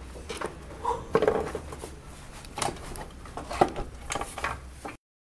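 Thin aluminium heat shield knocking and scraping against engine parts as it is worked loose by hand: scattered light metallic clicks and knocks over a low steady hum, cutting off abruptly near the end.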